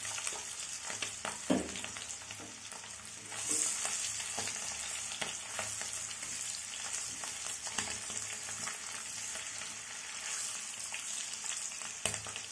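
Potatoes and eggs frying in hot oil in a pan: a steady sizzle, with light clicks of a utensil against the pan.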